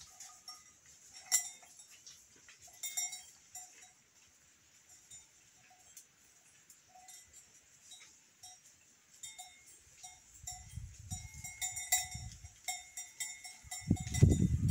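Livestock bells on a moving flock of sheep and goats, clanking irregularly: a few scattered rings at first, busier toward the end. A low rumble comes in near the end and is loudest just before the close.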